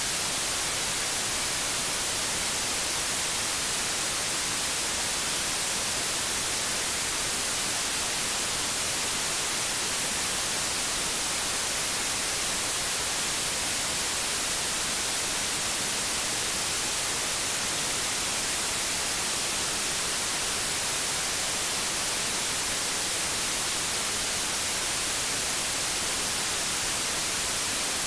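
Steady white noise: an even, unbroken hiss weighted toward the treble, with no change in level.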